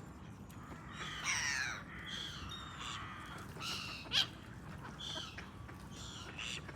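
Birds calling with short, harsh calls about once a second, with a longer falling call about a second in and a sharp, loud one a little past four seconds.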